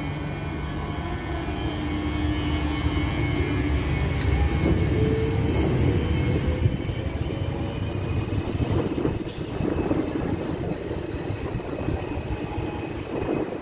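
Regio 2N double-deck electric multiple unit pulling along the platform. Its traction motors give a whine that rises in pitch as it gathers speed, over the rumble of wheels on the rails, with a few knocks later on.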